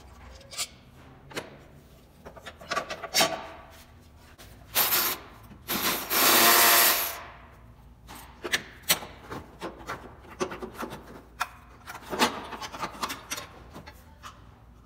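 Hand work on car parts: scattered clicks and knocks with two scraping rubs, a short one about five seconds in and a longer, louder one lasting about a second, as a cover plate is worked loose in the engine bay.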